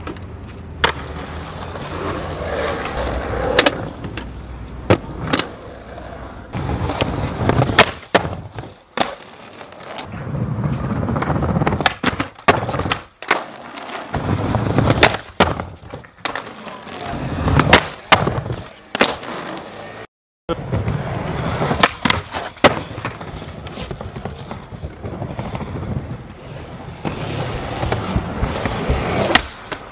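Skateboard wheels rolling over concrete and paving, broken by many sharp clacks of the board popping and landing. The sound drops out completely for a moment about twenty seconds in.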